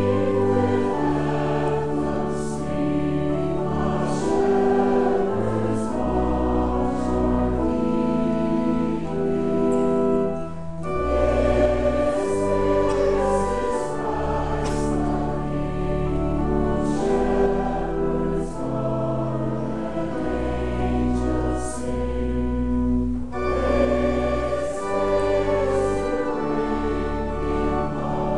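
A church congregation singing a hymn, accompanied by a pipe organ playing sustained chords over deep pedal notes, with brief pauses between lines about 11 and 23 seconds in.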